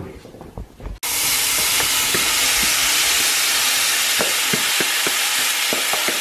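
King prawns and chopped onion sizzling in a frying pan, a loud, steady hiss that starts abruptly about a second in, with scattered small clicks of stirring.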